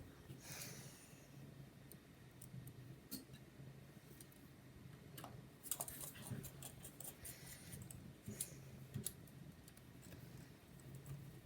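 Faint scattered clicks and light scrapes of a precision screwdriver and small screws working against a laptop's metal case, thickest about halfway through, over a low steady hum.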